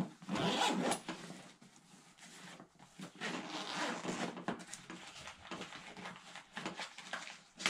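Zipper on a nylon backpack pouch being pulled open in short raspy runs, with a pause in the middle, along with rustling of the bag's fabric under the hands.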